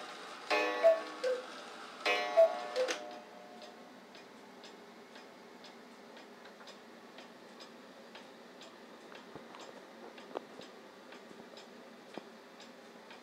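Antique 1800s Black Forest cuckoo clock by Beha sounding its two-note cuckoo call twice, the close of its striking of the hour. Its movement then ticks steadily, about two ticks a second.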